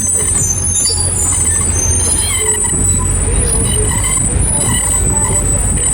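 Small tourist road train running, a steady low engine rumble under a constant high-pitched squeak.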